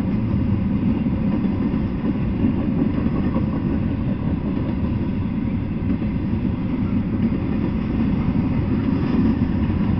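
Double-stack intermodal freight train rolling past at steady speed: a continuous low rumble of the cars on the rails, with no horn or sudden noises.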